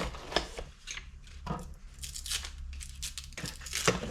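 Cardboard box being torn open by hand, with irregular tearing and rustling of cardboard and packaging.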